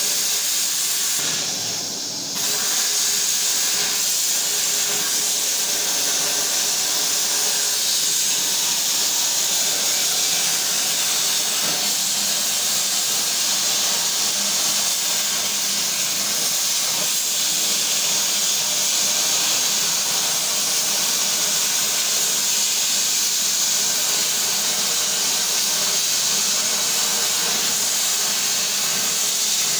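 Air plasma cutting torch on a homemade CNC table, its arc hissing steadily as it cuts sheet metal, with a brief dip in loudness about two seconds in.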